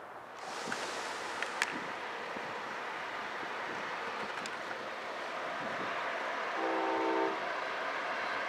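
Approaching passenger train's locomotive horn sounding one short blast about two-thirds of the way through, over a steady outdoor hiss with a few sharp clicks in the first couple of seconds.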